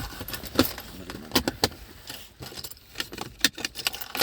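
Keys jangling and clicking as they are handled: an irregular run of sharp metallic clicks and jingles.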